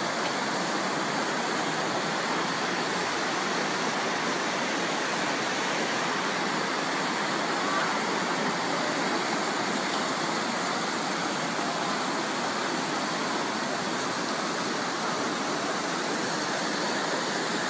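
Fast-flowing floodwater rushing down a street, a steady, unbroken rush of water.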